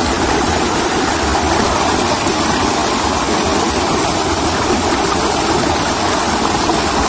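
Shallow rocky stream rushing and splashing over boulders in a loud, steady rush of white water.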